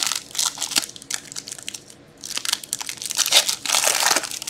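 Foil wrapper of a hockey card pack being torn open and crinkled as the cards are slid out: crackling rustles in the first second, then a longer, louder stretch of crinkling from about two seconds in.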